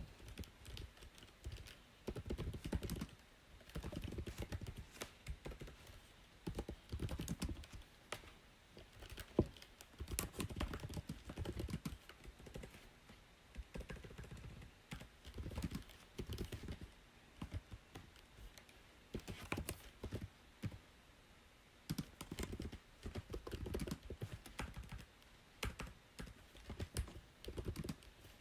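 Typing on a computer keyboard: bursts of rapid keystrokes, each lasting a second or two, broken by short pauses.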